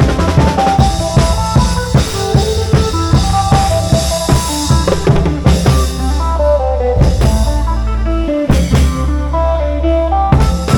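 Isan long-drum (klong yao) band music: drums beating a busy rhythm under a melody of short stepped notes.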